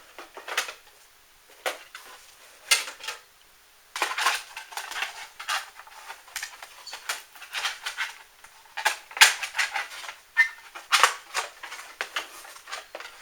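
Hard plastic scale-truck body parts being handled and set down, giving irregular clacks and rattles with short stretches of rustling.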